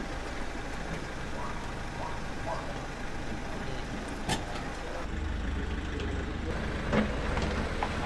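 Minibus engine running as the vehicle stands and then pulls away; its low rumble gets louder from about five seconds in. There is a sharp knock about four seconds in.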